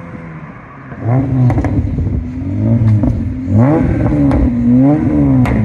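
Rebuilt Mitsubishi 6G75 V6 engine revved in a series of about five blips, each rising and falling, after a quieter first second, with a few sharp clicks between the revs.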